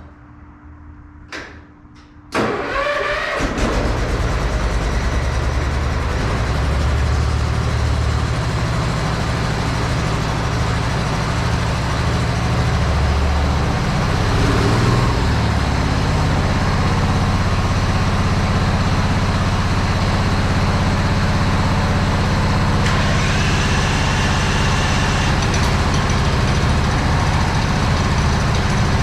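An engine cranks and catches about two seconds in, then runs steadily at idle.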